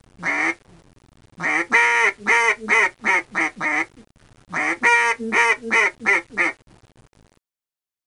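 Duck quacking: one quack, then two runs of six or seven quacks in quick succession.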